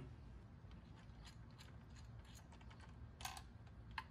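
Faint, scattered small clicks and taps of hand work on engine parts, over a low steady hum; a sharper brief clatter a little after three seconds in and one sharp click near the end.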